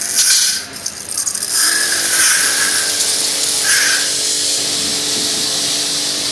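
Small electric pressure-washer machine running and spraying water, used to clean a window AC. After a few uneven spurts, about a second and a half in it settles into a steady hiss of spray over a motor hum.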